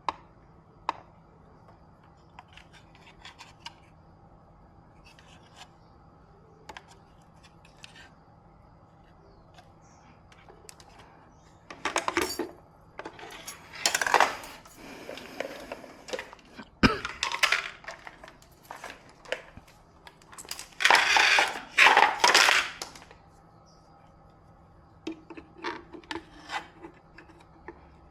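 Small metal tools and parts being handled on a workbench: scattered clicks and clinks, with two longer stretches of scraping and rubbing past the middle and a sharp click between them.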